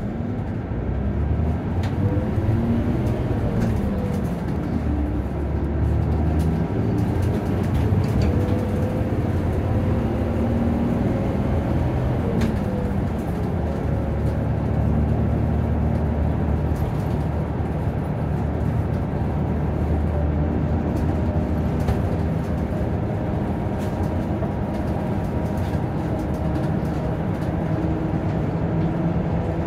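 Nissan Diesel PKG-RA274MAN city bus under way, heard from inside the cabin: a steady diesel engine and drivetrain rumble with a whine whose pitch slowly rises and falls as the bus speeds up and slows.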